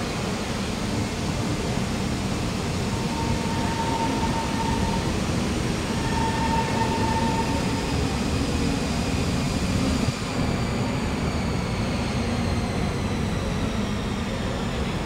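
Kawasaki Heavy Industries C151 metro train (GTO-VVVF variant) pulling into the platform and braking to a stop: a steady rumble with a high whine from its traction motors that falls in pitch as it slows in the second half. Two short steady tones sound a few seconds in.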